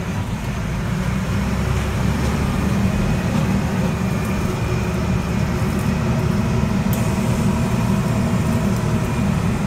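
Army truck's engine running steadily as it drives along an off-road track, heard from inside the cab: a low, even drone.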